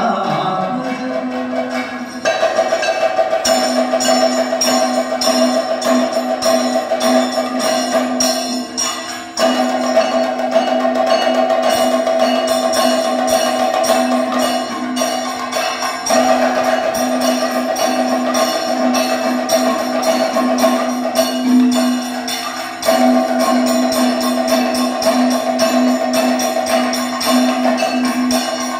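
Kathakali percussion ensemble: chenda and maddalam drums played in fast, dense strokes, over a steady held tone that breaks off and resumes every several seconds.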